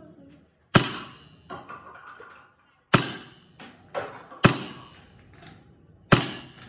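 Tokyo Marui Hi-Capa gas blowback airsoft pistol fired four times, sharp cracks about one and a half to two seconds apart, with fainter knocks in between.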